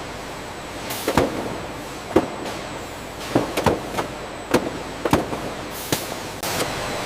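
Processing-line machinery running with a steady hum, broken by irregular sharp clanks and knocks, about eight of them.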